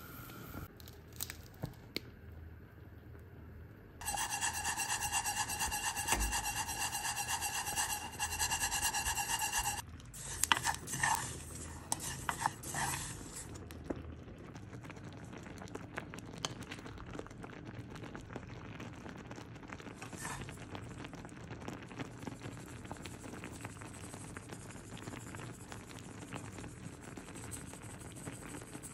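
A loud steady hum made of several even tones starts about four seconds in and lasts about six seconds. After it, sesame seeds are stirred in a dry pot on the stove, making a dry rubbing, scraping rustle with many small ticks.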